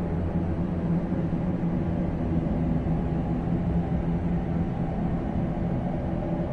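Steady low hum of pumps and machinery running in a basement plant room, unchanging throughout.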